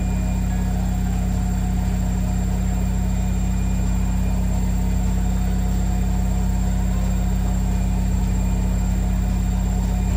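Washing machine running, a steady low hum that fills the kitchen.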